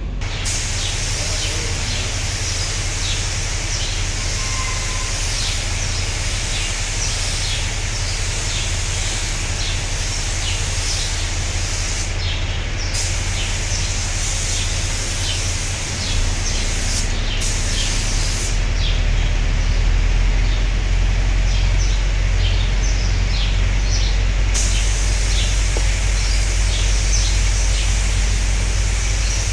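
Spray gun hissing steadily over a low steady hum. The hiss cuts out briefly twice and then for several seconds in the middle. Birds chirp throughout.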